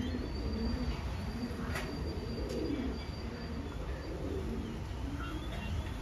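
Homing pigeons cooing in a loft, a continuous low, wavering murmur, with a faint thin high chirp in the middle of it and a single light click about two seconds in.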